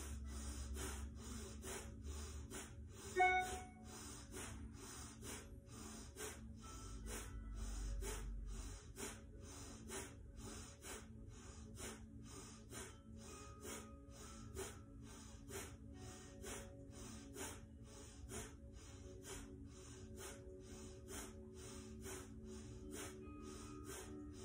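A woman breathing in and out sharply and forcefully through the nose, about two strokes a second, in slow kapalabhati (breath of fire) with equal force on the inhalation and the exhalation. Soft steady background music runs underneath, and a brief pitched squeak sounds about three seconds in.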